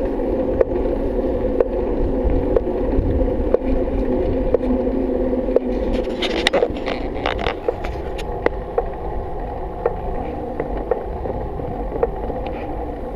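Bicycle rolling along asphalt, heard from a camera mounted on the bike: a steady rolling hum with a light tick about once a second. A short burst of rattling and scraping comes about six to seven seconds in.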